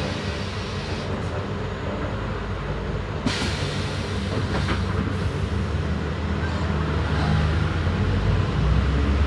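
Diesel engine of a Marcopolo New Sênior minibus on a Volkswagen 9-160 OD chassis running under way, with body rattle and road rumble, a sharp clack about three seconds in, and the engine note strengthening near the end.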